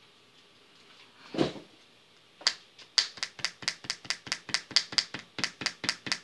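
A kneaded eraser dabbed quickly and repeatedly onto drawing paper to lift graphite off a highlight, making light taps about five or six a second that start about two and a half seconds in. A single soft knock on the paper comes just before them.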